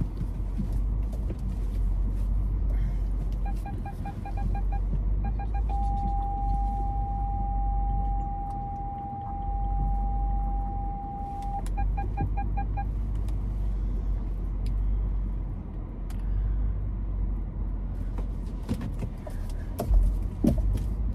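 Car's reversing parking sensor beeping rapidly, merging into one continuous tone for about six seconds, the sign that the car is very close to an obstacle behind, then breaking back into rapid beeps before it stops. A steady low engine and cabin rumble runs underneath.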